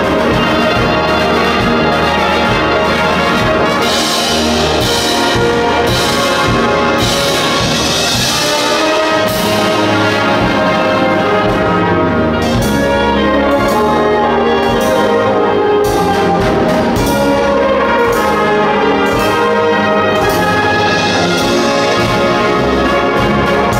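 School wind band playing a Disney medley live, with brass and saxophones leading over flutes and a drum kit, with frequent percussion strokes.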